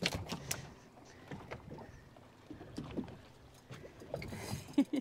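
Scattered light knocks and clatter on the deck of a small fibreglass fishing boat, a quick cluster at the start and single taps after.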